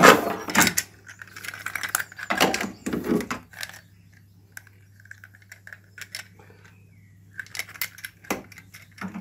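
Clicks and light clatter of small hard plastic and metal parts being handled, the loosened nut and fittings of a cistern filling valve, in clusters about two to three seconds in and again near the end, over a faint low hum.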